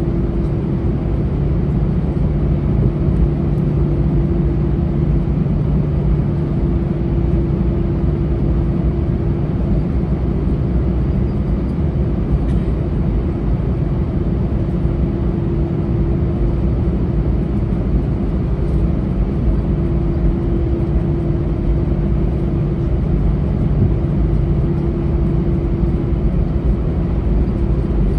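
Airbus A319 taxiing, heard inside the cabin: the jet engines at low taxi power make a steady drone with a deep rumble and a steady mid-pitched hum.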